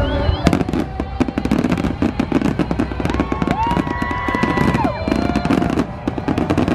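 Fireworks display: many shells bursting at once in dense, rapid crackling and banging, starting about half a second in.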